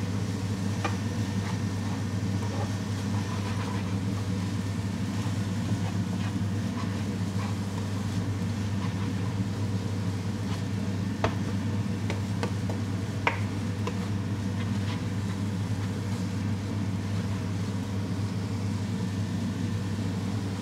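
Steady low mechanical hum from a kitchen appliance's motor or fan running continuously, with a few faint ticks about halfway through.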